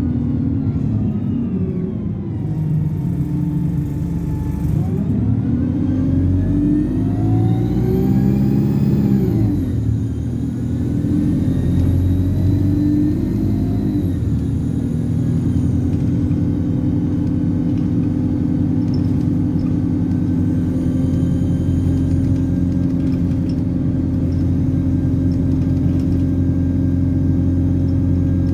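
Alexander Dennis Enviro200 bus engine accelerating, then easing off, with its turbocharger whistle rising steeply to a loud high pitch and falling away about nine seconds in. In the second half the engine runs at a steady pitch, with a fainter turbo whistle briefly.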